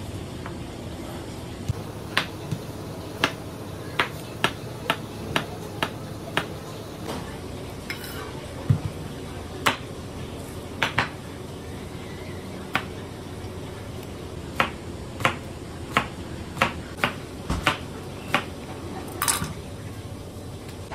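Large kitchen knife cutting through oranges and a pineapple and striking the cutting board: a series of sharp knocks at irregular spacing, roughly one a second, some in quick pairs.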